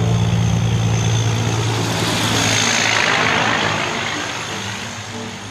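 Semi-truck driving past: a steady diesel engine hum, with tyre and wind noise that swells as it goes by about two to three seconds in, then fades away.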